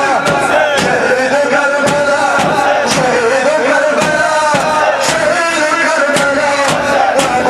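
A voice chanting a wavering, mournful-sounding melody, with sharp beats roughly once a second.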